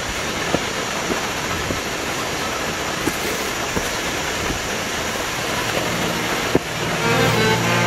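Steady rushing of a waterfall, with a few faint clicks and a sharp knock about six and a half seconds in. Background music comes in near the end.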